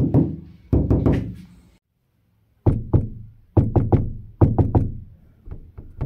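Fingers knocking on a Dacia Spring's roof: a quick run of knocks on the outer steel roof panel, then, after a short gap, a longer run of knocks on the headliner from inside the cabin. Each knock rings briefly, the sound of a bare roof skin with only the headliner beneath it and no damping material.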